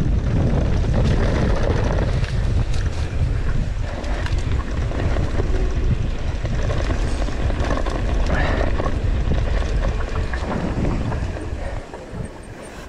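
Wind buffeting the camera microphone on a fast downhill mountain bike descent, with the tyres rolling over dirt and the bike rattling over bumps. It dies down near the end as the bike slows.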